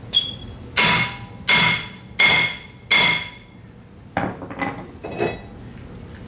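Hammer blows on the metal of a car's front brake assembly: five sharp, ringing strikes about 0.7 s apart, then a few lighter knocks in the second half.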